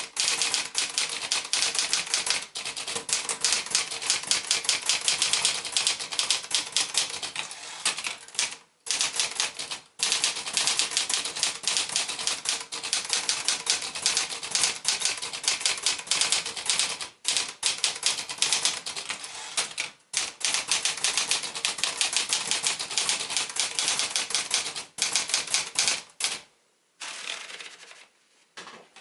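Olivetti Lettera 35i manual portable typewriter being typed on: a rapid, steady run of typebar strikes, several per second, with a few brief pauses. The typing stops near the end.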